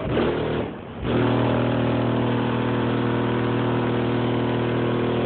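Four Audioque 15-inch subwoofers in a Suburban playing a loud, steady bass tone for an SPL competition burp, scored at about 149.7 dB. A brief short tone comes right at the start, then the main tone begins about a second in, holds steady for about four seconds, and cuts off suddenly.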